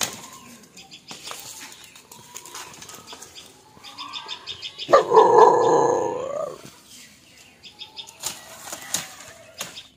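Dry bamboo leaves and sheaths rustling and crackling, with scattered sharp clicks, as someone pushes through a bamboo clump. About halfway through, a loud call or voice cuts in for about a second and a half.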